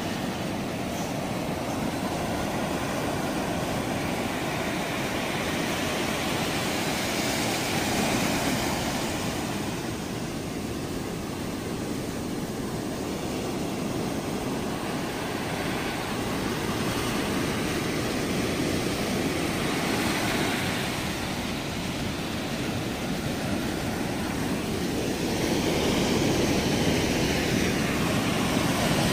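Sea surf: small waves breaking and foam washing up over the sand, a steady rushing that swells louder every several seconds as each wave comes in.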